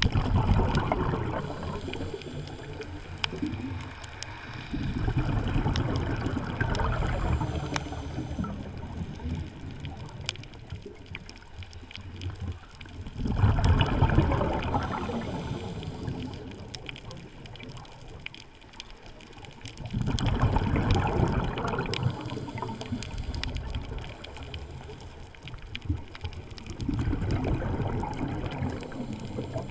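Scuba diver breathing through a regulator underwater: gurgling bursts of exhaled bubbles about every six to seven seconds, each lasting a few seconds, with quieter stretches between.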